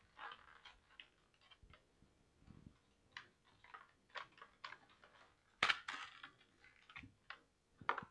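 Scattered light clicks and crinkles of a cardboard packaging insert being handled as a webcam is worked out of it, with one sharper crackle about five and a half seconds in.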